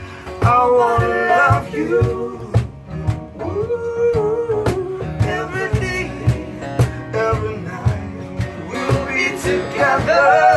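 Live music: a guitar strummed in a steady rhythm under a voice singing a melody.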